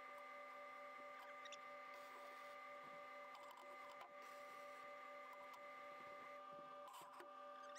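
Near silence: a faint steady electrical hum with a few light clicks.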